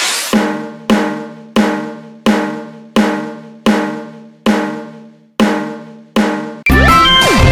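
A struck, ringing percussion hit repeated about every two-thirds of a second, nine times, after a rising swell at the start. Loud, busy electronic music cuts in near the end.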